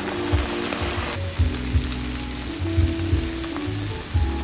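Broth sizzling in a hot pan of sautéed onions, sun-dried tomatoes and garlic; the hiss eases about a second in. Background music with a beat plays underneath.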